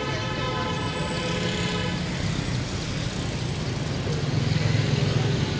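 Road traffic noise, with vehicle engines running steadily.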